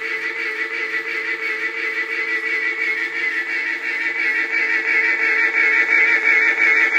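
Edison Standard Phonograph playing a cylinder record through its horn: a long, steady, wavering held note that grows a little louder toward the end.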